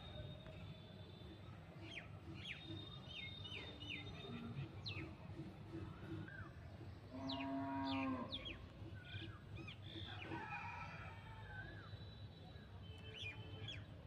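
Small birds chirping on and off over a steady low background hum. About seven seconds in, a single long call at a steady pitch, a little over a second long, is the loudest sound.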